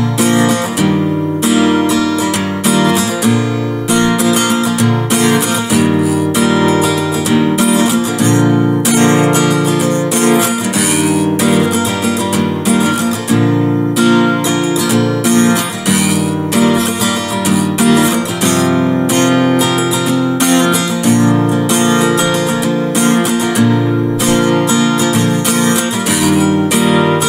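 Outro music led by strummed and picked acoustic guitar, with a steady rhythm.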